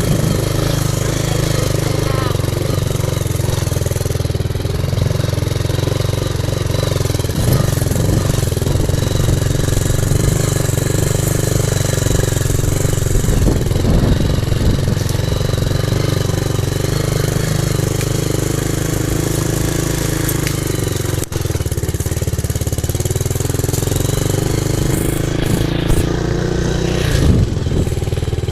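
Motorcycle engine running steadily while riding, with rough-track and wind noise over it.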